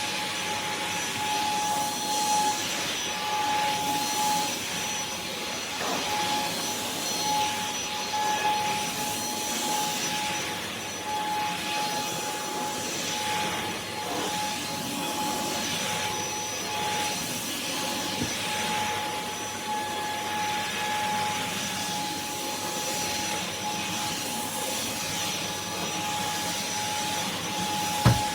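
Stick vacuum cleaner running steadily: a rush of air with a constant high motor whine. A short knock comes near the end.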